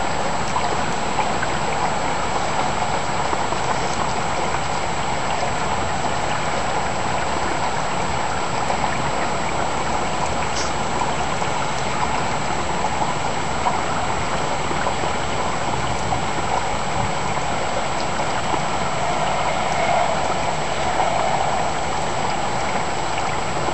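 Steady rain falling, an even continuous hiss with no breaks.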